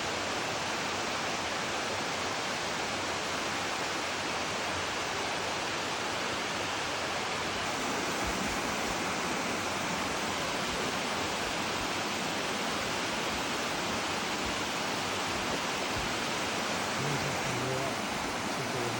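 A large waterfall rushing in a steady, even wash of noise.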